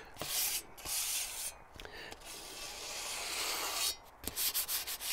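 A soft wad rubbed back and forth along a freshly ground steel scythe blade, wiping off the burr left by grinding the primary edge. It comes in four scratchy strokes, the longest about two seconds near the middle.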